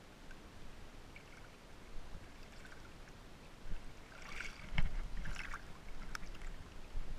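Seawater sloshing and splashing against a GoPro's waterproof housing held at the surface, muffled by the case. A cluster of louder splashes and a couple of sharp knocks come past the middle.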